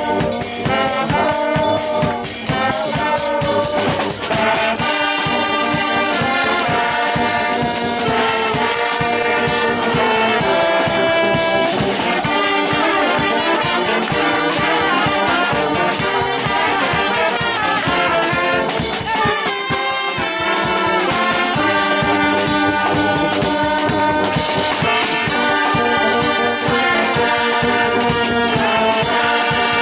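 Brass band playing a lively tune: trumpets, trombones, saxophones, sousaphone and euphonium over a drum kit with bass drum and snare. The bass and drums drop out briefly about two-thirds of the way through, then the full band comes back in.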